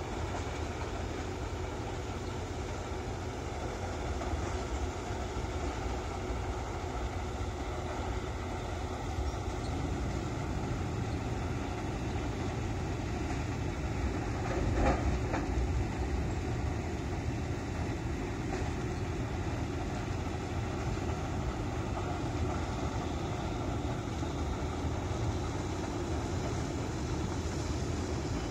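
Heavy diesel truck engine idling, a steady low rumble that gets briefly louder about halfway through.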